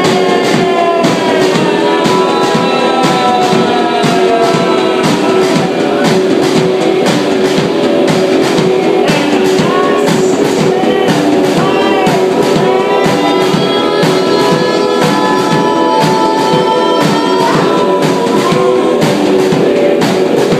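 Live rock band playing loudly: electric guitar and drum kit with a steady beat, and a singer's voice at times.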